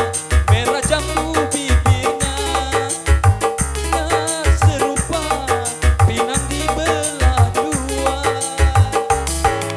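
Live dangdut music from an orgen tunggal keyboard setup: a pulsing bass and steady percussion under a wavering melody line.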